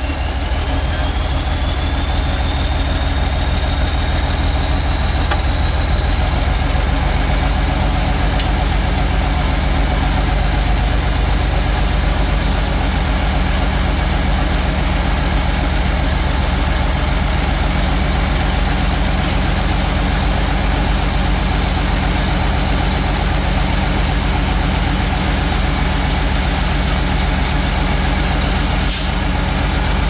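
Heavy diesel engine of road-building machinery running steadily and loud, with a high whine that rises over the first few seconds and then holds. A short sharp click comes near the end.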